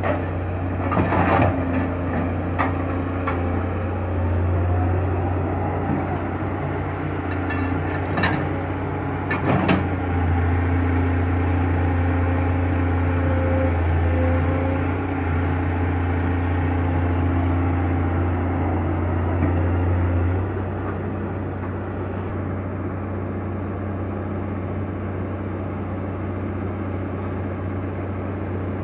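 Kato HD700VII hydraulic excavator's diesel engine running steadily under digging load, with a few sharp knocks in the first ten seconds. About twenty seconds in, the engine note drops to a lower, quieter level.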